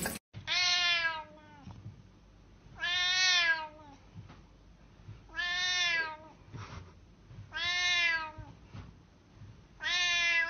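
Domestic cat meowing while its head is petted: five drawn-out meows, each under a second long, coming about every two and a half seconds.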